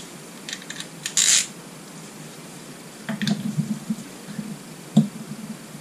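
Light metallic clicks and clinks of a socket being fitted to the engine's crankshaft bolt and the engine turned over by hand to find top dead centre, with a brief scrape about a second in and one sharp, louder click near the end.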